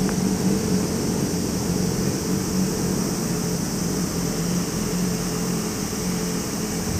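Low rumble of a 221 series electric train on the Nara Line fading slowly as it moves away, with a steady high-pitched drone behind it.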